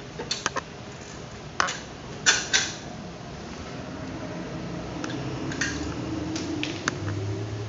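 Metal tools clinking and clanking against the car's underside, several sharp knocks in the first three seconds, then a steady mechanical hum building with a few lighter clicks.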